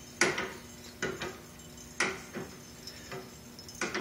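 Sharp metallic clicks and knocks from a homemade chassis's steering linkage being worked by hand, about six spread unevenly over four seconds.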